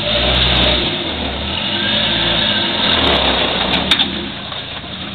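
Rock-crawling flat-fender Jeep's engine pulling at low speed over boulders, swelling with throttle early on and again about three seconds in, with a few sharp clicks and knocks.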